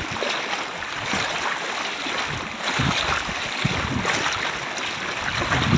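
Floodwater rushing and sloshing: a steady watery noise with irregular low sloshes.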